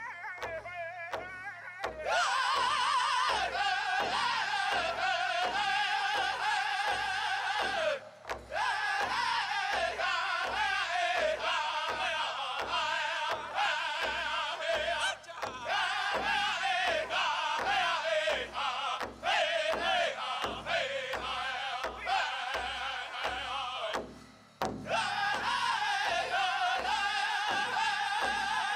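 Pow wow drum group playing a men's chicken dance song: a large drum struck in a steady beat of about two strokes a second under high-pitched group singing. The singing breaks off briefly about 8 seconds in and again near 24 seconds, then resumes over the drum.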